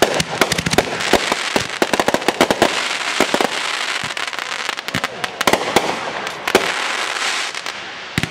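Consumer 1.4G aerial fireworks cakes firing: a dense run of sharp bangs from the bursting shots, with crackle between them, thinning out and getting quieter near the end.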